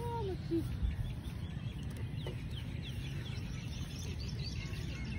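Small birds chirping faintly, many short falling chirps scattered throughout, over a low steady rumble.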